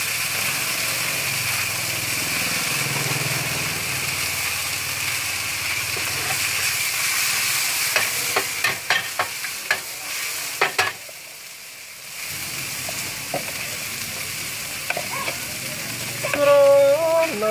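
Rice pin noodles, bean sprouts and greens sizzling on a large flat steel pan over a gas burner, with a metal spatula scraping and clicking against the pan in a quick run of strokes about halfway through. The sizzle dips for about a second just after the spatula strokes.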